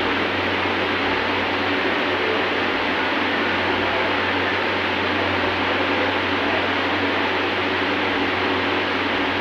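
Steady mechanical hum with an even hiss from kitchen machinery running, unchanging throughout.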